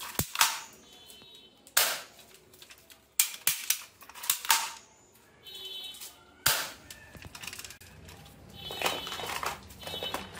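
Hard plastic toy guns being handled: a string of sharp, irregular clacks and knocks, with a rougher rattle of plastic near the end.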